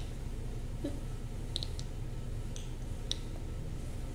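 A few faint, short clicks, about one a second, over a steady low hum.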